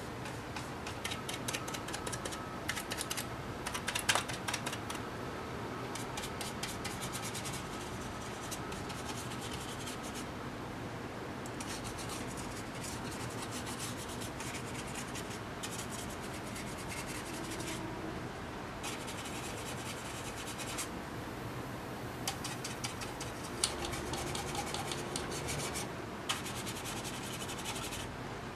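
Paintbrush scrubbing and dabbing weathering paint onto a scale-model truck panel: runs of quick, scratchy strokes a few seconds long with short pauses between them, and a few sharper taps.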